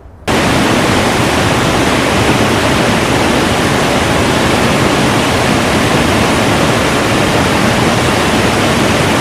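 Waterfall cascading over granite close by: a loud, steady rush of water that starts abruptly about a third of a second in.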